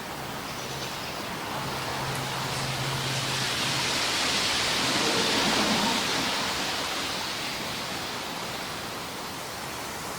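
Aircraft passing over a forest: a broad rushing engine noise builds to a peak about halfway through, then fades away.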